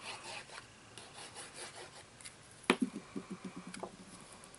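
Cardstock rubbing and sliding under hands on a craft mat, then a sharp click about halfway through followed by a quick run of taps lasting about a second.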